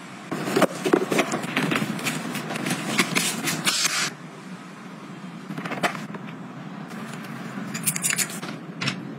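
Irregular scraping and rattling of a clear plastic cleaning cart, loaded with spray bottles, being moved over a tile floor, loudest in the first few seconds. Near the end come a few sharp clicks from a metal safety-rope clip being fastened around a sofa leg.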